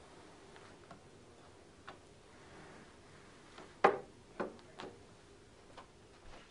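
A few scattered light clicks and knocks of metal banner poles and their end fittings being handled on a tabletop. The sharpest knock comes about four seconds in.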